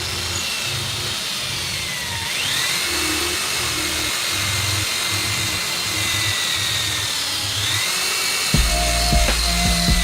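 Electric power tool motor running with a high whine, its pitch dipping and recovering about two seconds in and again near the end, over background music with a repeating bass line.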